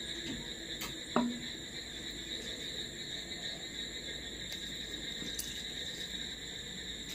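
A small bowl set down with a short knock about a second in, then soft sounds of fingers mixing rice and dal on a plate. A steady high-pitched whine runs underneath throughout.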